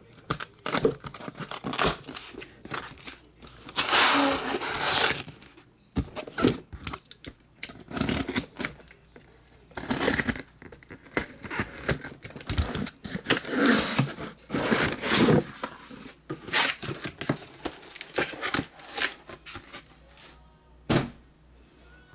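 Plastic shrink wrap being torn and crumpled off sealed trading-card boxes, in irregular bursts of tearing and crinkling with a sharp click near the end.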